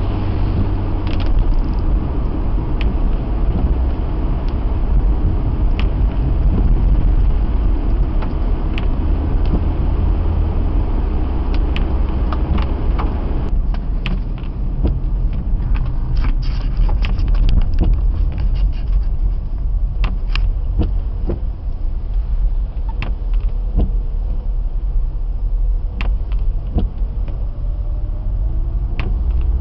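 Car driving, heard from inside the cabin: a steady low rumble of engine and road noise with scattered ticks and knocks. The hiss above it drops away about halfway through, and a faint whine rises in pitch near the end.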